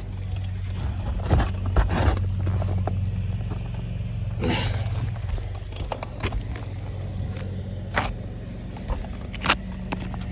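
Footsteps and handling on an asphalt shingle roof: a few sharp knocks and a scraping rustle about four and a half seconds in, over a steady low hum.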